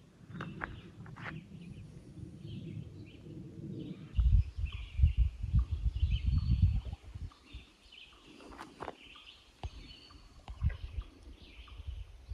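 Songbirds chirping and calling at intervals, with a stretch of low rumbling noise from about four to seven seconds in and again briefly near the end.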